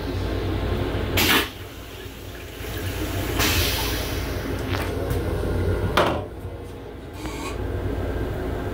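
Toilet of a Long Island Rail Road M7 railcar flushing in two cycles. Each is a rush of rinse water into the steel bowl, cut off by a sharp whoosh: the first about a second in, the second about six seconds in. A steady low rumble from the train runs underneath.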